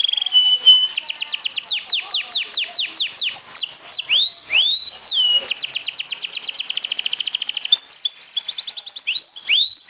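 Domestic canary singing a long, varied song: a short steady whistle, then runs of rapid downward-sweeping notes and upward-curling notes, with a very fast trill in the middle.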